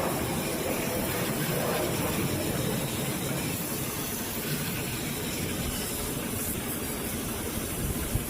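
Steady rushing hiss over a low rumble from a running car.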